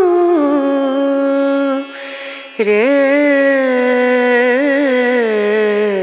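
Background music: a solo voice singing long, held, ornamented notes in Indian classical style. The voice breaks off briefly about two seconds in, then comes back on a rising note.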